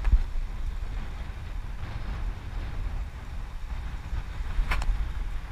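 Wind buffeting the microphone of a bike-mounted camera while riding a road bike, a steady low rumble with tyre noise from the tarmac. A low bump right at the start and a short sharp click about four and a half seconds in.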